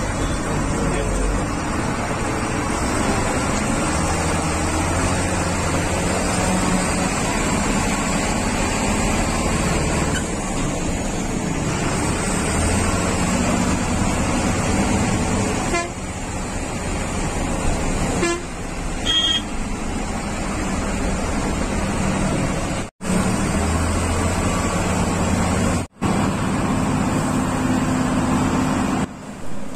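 Bus engine and road noise heard on board a bus climbing a hill road, the engine note rising and falling, with a horn sounding briefly about two-thirds of the way through. The sound drops out abruptly twice near the end.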